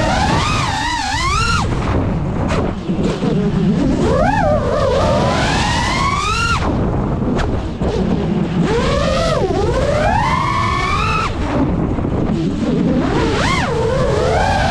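GEPRC Mark5 FPV quadcopter's motors and propellers whining, the pitch swooping up and down sharply again and again as the throttle is punched and cut, over a low rushing noise.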